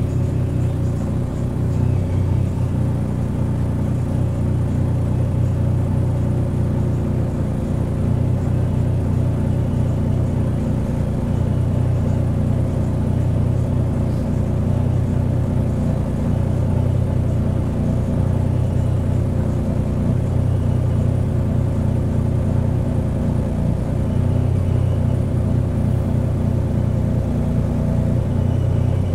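Heuliez GX127 bus's diesel engine heard from on board, running with a steady low rumble that holds even throughout.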